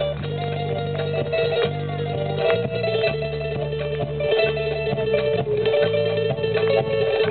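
Live band playing a Peruvian criollo song: plucked guitar over steady bass notes and a long held melody line, with cajón strokes keeping time.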